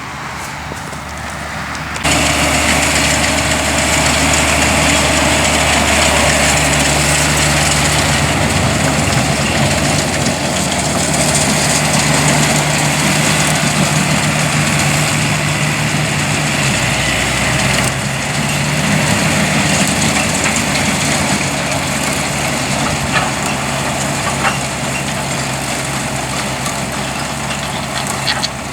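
Tractor engine running steadily, stepping up in level about two seconds in and then holding.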